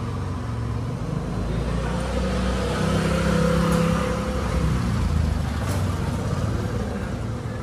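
Engine of a motor vehicle on the road close by, its low steady hum swelling to a peak midway and then easing off as it passes, with a light click or two.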